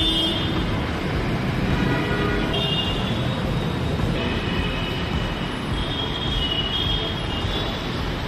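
Steady rumble of busy road traffic, with short high-pitched squeals coming and going.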